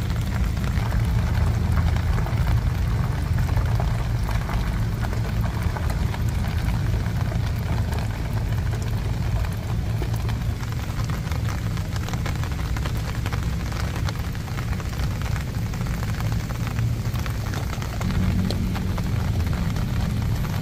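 Steady heavy rain falling on wet pavement, a dense hiss of drops, with a constant low rumble underneath that swells slightly near the end.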